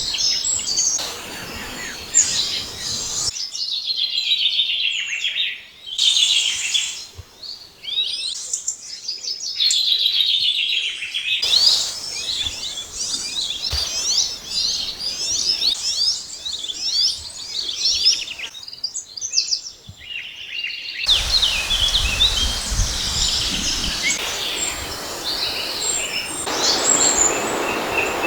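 Several wild birds singing and calling together in riverside woodland: a dense chorus of chirps, trills and whistles, changing abruptly a few times. In the last quarter a steady rushing noise with a low rumble comes in under the birds.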